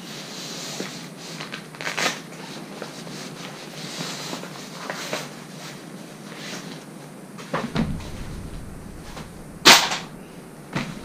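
Rustling and clicks of a hydration backpack being handled as its plastic water bladder and drinking tube are pulled out, with a low thump about eight seconds in and a loud sharp snap just before the end.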